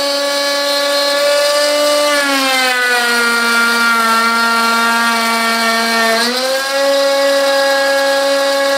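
Electric trim router on a homemade CNC gantry, cutting a wooden board with a steady high whine. The whine drops in pitch about two seconds in and climbs back up about two-thirds of the way through.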